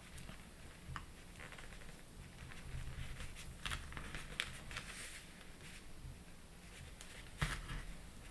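Small plastic Lego pieces being handled and snapped together: a scatter of faint clicks and taps, with one sharper knock about seven seconds in.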